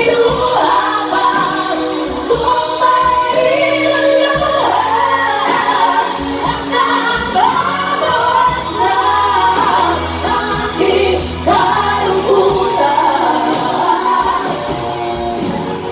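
Live pop-rock band playing: several women singing the melody together over electric guitar and bass.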